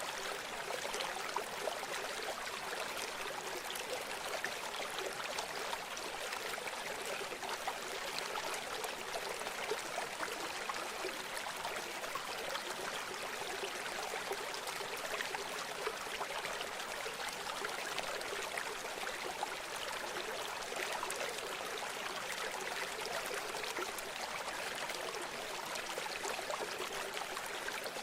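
Shallow river or stream flowing steadily, with a constant rushing and babbling of water.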